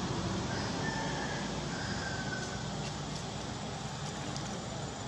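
Steady outdoor background noise, with two faint short high chirps about one and two seconds in.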